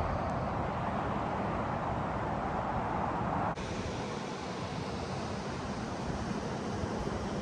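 Steady rushing roar of falling water. About three and a half seconds in it breaks off abruptly and gives way to a thinner, hissier rush.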